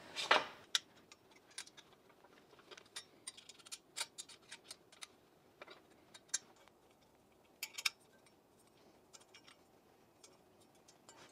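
Faint, irregular small metal clicks and ticks of an Allen wrench turning screws into a metal cabinet frame, with the odd light clink of the frame tubes being handled.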